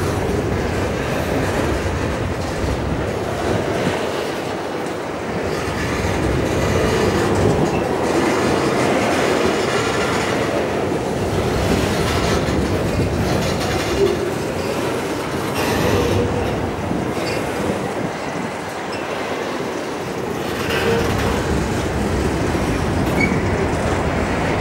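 Freight train wagons rolling past: a steady rumble and clatter of wheels on the track, with a few brief wheel squeals on the curve.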